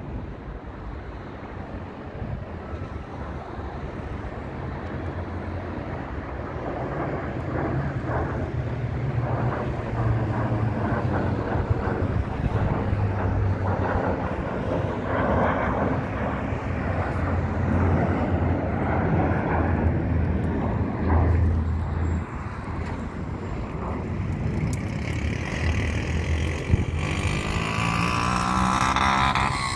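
Jet engines of a twin-engine business jet roaring as it climbs out after takeoff and passes overhead. The roar grows louder over the first third, then holds steady with a sweeping, swirling quality.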